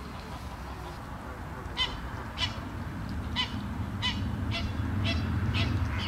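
A bird calling again and again in short, sharp calls, starting about two seconds in and coming roughly every half second to second, over a steady low background rumble.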